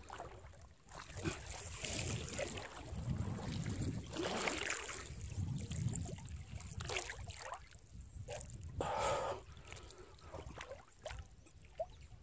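Water sloshing and splashing close up in uneven bursts, from movement through the water.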